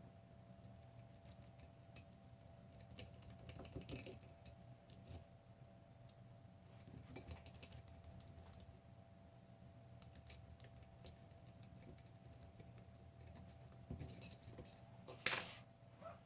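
Faint, irregular small metallic clicks and scratches of a Yale Superior/Platinum pick working the dimple pins inside a Yale Platinum 3-star lock cylinder, with one sharper, louder click about fifteen seconds in.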